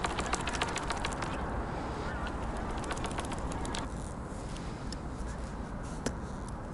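Waterfowl calling in the distance over a steady outdoor hiss, with quick runs of light clicks and taps in the first half and one sharper click about six seconds in.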